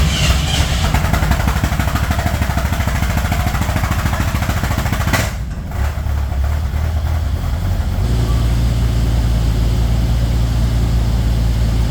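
Bombardier snow bus engines running at idle in a shop. There is a brief dip with a click about five seconds in, and from about eight seconds the running turns steadier and heavier in the low end.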